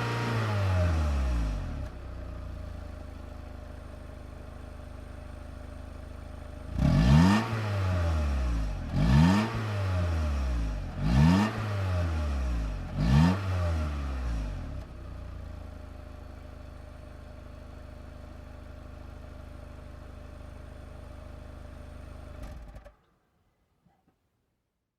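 Car engine dropping from high revs to idle, then revved four times in quick blips about two seconds apart, each rising and falling back to a steady idle. The sound cuts off abruptly near the end.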